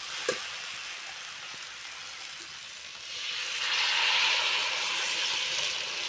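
Jackfruit and potato curry frying in a pan, sizzling steadily. About three seconds in, the sizzle swells into a louder hiss as water is poured into the hot pan, then settles again.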